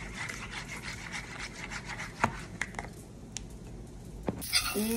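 A metal spoon stirring and scraping a creamy dipping sauce in a paper bowl, with a few light clicks of the spoon against the bowl. About four seconds in, food starts sizzling in a frying pan.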